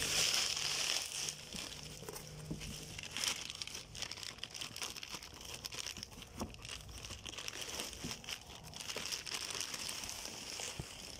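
Bubble wrap and a plastic bag crinkling and rustling as they are handled and pulled out of a cardboard box, with many small crackles, loudest in the first second.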